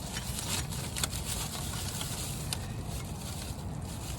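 Small scooter parts being handled and shifted about: a few light clicks over a steady background hiss.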